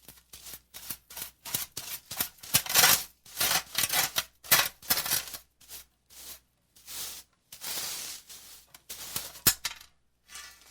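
Small hand whisk broom sweeping debris across concrete into a metal dust pan: a run of short, brisk bristle strokes, with a sharp knock near the end.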